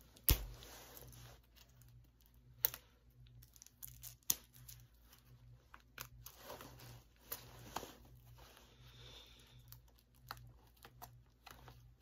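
Plastic wrapping and seal on a DVD case being picked at and torn, with crinkling and scattered sharp clicks and snaps, the loudest just after the start.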